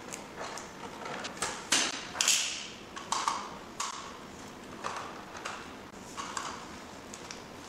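Cables being handled and plugged into a DVR: irregular clicks and knocks of connectors and cable coils against the table, mixed with the rustle of the coils' plastic wrapping.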